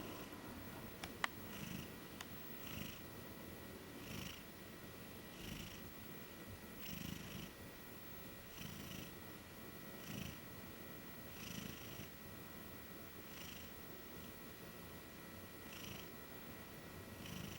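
Maine Coon cat snoring quietly in its sleep, one soft breath about every second and a half. A single sharp click about a second in.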